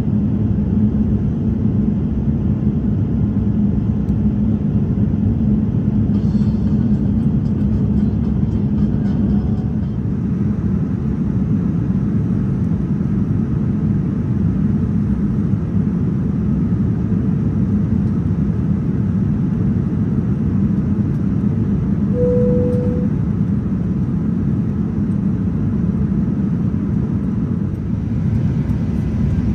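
Steady low rumble of a Boeing 787 Dreamliner airliner in operation. A brief single tone sounds about two-thirds of the way through.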